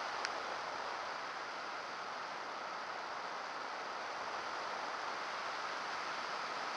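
Steady rushing wind noise from air streaming past the onboard camera of a model airplane in flight, with no motor note. A faint short click about a quarter second in.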